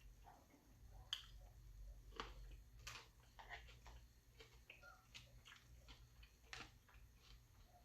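Faint chewing and eating sounds from a person eating fried chicken: scattered soft mouth clicks and wet smacks at an uneven pace.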